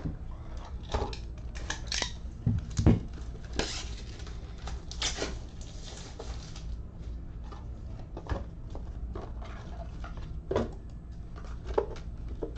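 Scattered clicks, light knocks and rustles of objects being handled on a table, with a couple of heavier thumps about two to three seconds in, over a steady low electrical hum.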